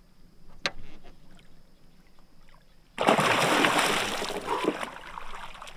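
A muskie's tail kick splashing water hard at the boat's side about three seconds in, a sudden loud splash that dies away over a couple of seconds as the released fish swims off strong. A brief sharp click comes just before the one-second mark.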